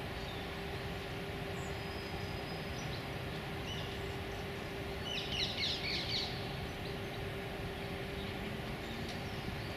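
Steady low rumble of distant city traffic with a faint constant hum. About five seconds in, a small bird gives a brief burst of rapid high chirps lasting about a second.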